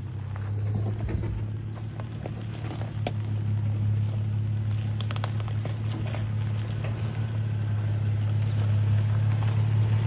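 A Nissan GQ Patrol's TB42 4.2-litre inline-six petrol engine running steadily at low revs as the 4WD crawls up a rocky track, growing louder as it comes closer. Scattered clicks and crackles come from the tyres rolling over loose rock and gravel.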